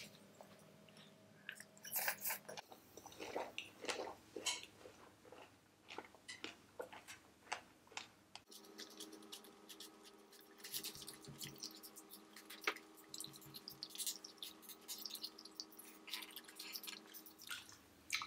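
Close-miked chewing of soft fruit jelly cake: wet, squishy mouth sounds and small irregular clicks and smacks, quiet and uneven.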